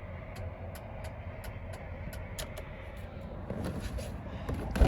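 Hazard-light flasher in a Chevy Kodiak truck cab ticking at an even pace, about two to three clicks a second, over a steady low hum.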